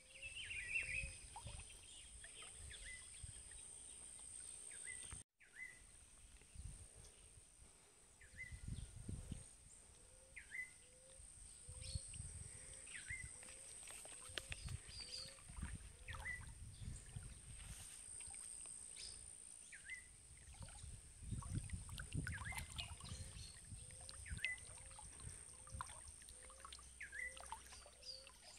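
Faint riverside ambience: a bird repeats a short chirp about every second and a half, and a lower call repeats about twice as fast. A steady high insect hum sits underneath, with irregular low rumbles.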